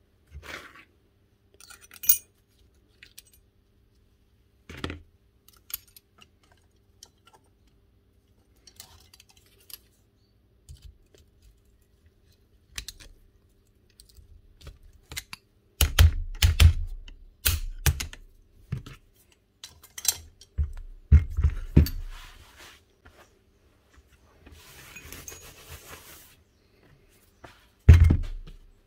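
Small metal parts of a Bosch GBH 5-38 D rotary hammer clinking and clicking as they are handled and fitted during reassembly. A run of heavier knocks comes in the middle, and a short scratchy rustle comes near the end.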